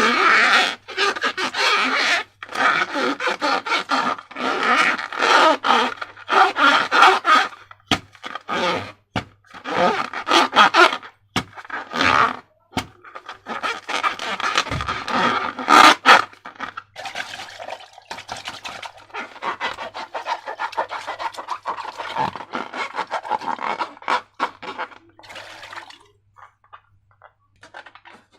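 Slime being mixed and squished: irregular sticky scraping and crackling with many sharp clicks and pops, easing off briefly near the end.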